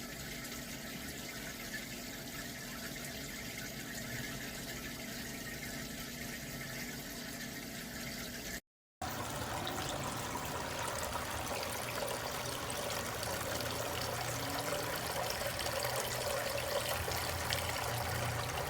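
Water trickling and splashing steadily in a Ferrisland freestanding Buddha waterfall fountain. The sound cuts out for a moment about nine seconds in, then carries on a little louder.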